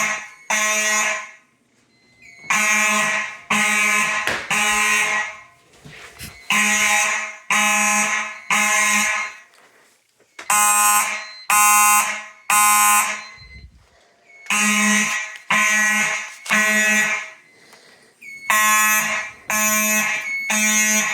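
Faraday mechanical fire alarm horns buzzing in the temporal-three evacuation pattern: three blasts of under a second each, then a pause, repeating about every four seconds.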